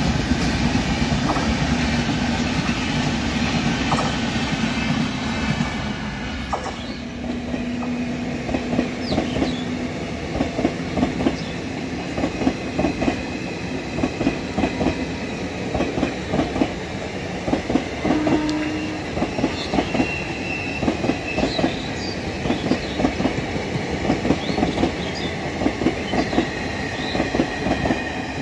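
Indian Railways passenger train passing close by: a steady rumble for the first few seconds, then the coaches' wheels clattering in a fast, regular rhythm over the rail joints, with a few faint high wheel squeals.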